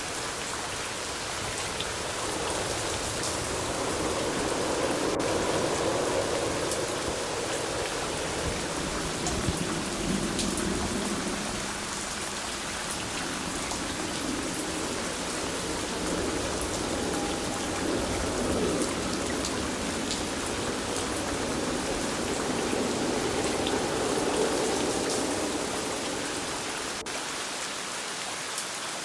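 Steady rain falling, an even hiss with many small drop ticks. A low rumble swells and fades twice beneath it.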